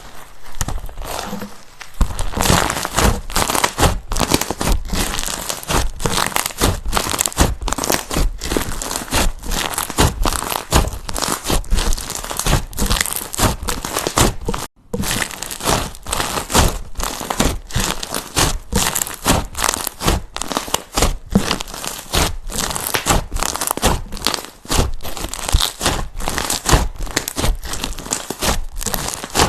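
Slime being squeezed, poked and stretched by hand, giving a dense, continuous crackling and crunching, with a brief break about halfway through.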